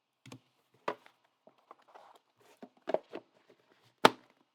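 Trading cards and their packaging being handled on a table: a series of light clicks, taps and rustles, with one sharp click about four seconds in.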